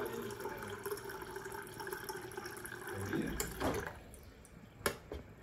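Refrigerator door water dispenser running a stream of water into a glass with ice. The stream stops about three and a half seconds in, and a sharp click follows near the end.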